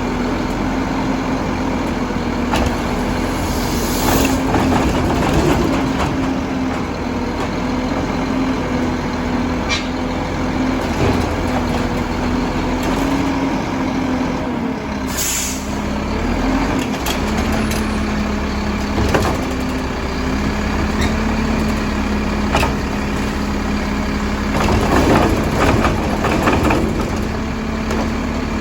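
Mack LEU garbage truck with a Labrie Helping Hand side loader running, its engine and hydraulics giving a steady drone that drops and shifts pitch about halfway through. Scattered clanks and knocks throughout, and a short air hiss just after the pitch change.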